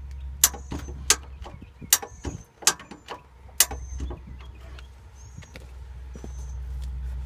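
Ratcheting bumper jack being pumped to lift a 1988 Ford Crown Victoria by its bumper: five sharp clicks in the first four seconds, with short high squeaks between them, over a steady low rumble.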